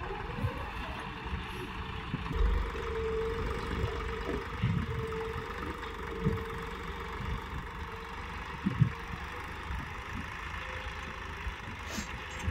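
John Deere 5405 tractor's three-cylinder diesel engine running steadily under load as it drags a single-tine subsoiler through the ground, with brief knocks now and then.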